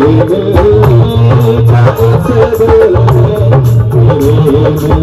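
Live devotional music interlude: a dholak beats a steady rhythm under a keyboard melody.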